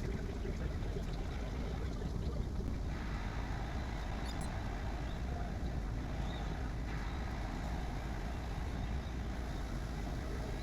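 Bambu Lab A1 3D printer running: a steady whir of fans and motors that changes tone every few seconds as the print moves shift.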